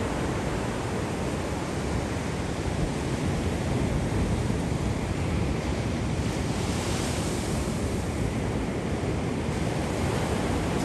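Wind buffeting the microphone, a steady rushing rumble that is heaviest in the low end. A brighter hiss rises for a few seconds past the middle and then drops away abruptly.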